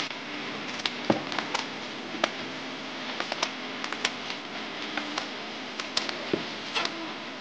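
Indoor room tone: a steady hiss with a dozen or more light clicks and taps at irregular intervals.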